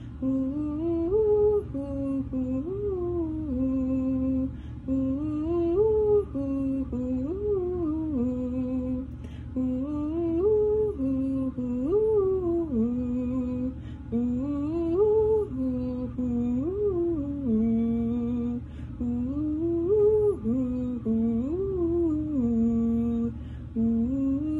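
A young alto's voice singing a descending scale exercise on "doo": a held note, then a quick rise and fall, repeated about every two seconds, each time starting a half step lower as she works down to the bottom of her range.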